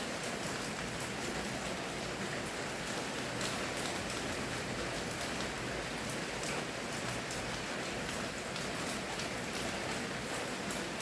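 Steady rain falling, an even hiss with many small drop patters and ticks.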